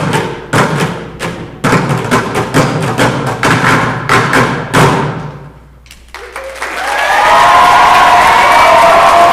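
A school percussion ensemble plays drum strikes, a hit every half second or so, which ring away to quiet about five and a half seconds in. The audience then breaks into loud applause with some cheering.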